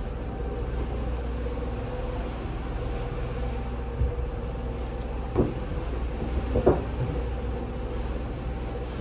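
A steady low mechanical hum, with a few short knocks and clatters about halfway through.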